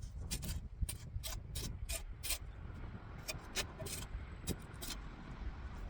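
Shovel blade scraping dirt off a stone tombstone base: about a dozen short scrapes at an uneven pace.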